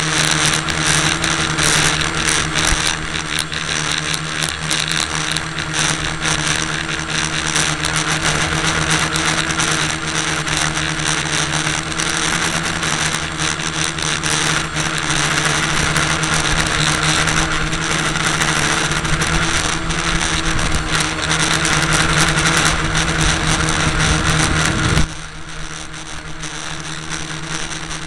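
A small motor running steadily close to the microphone, a constant hum under a loud rushing noise; the level drops suddenly about 25 seconds in and the hum carries on.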